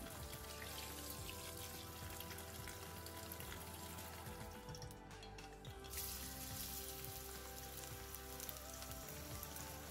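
Tap water running over sliced bitter gourd in a plastic colander, under background music. About six seconds in, after a short lull, it gives way to sizzling as bitter gourd slices cook in hot oil in a pan.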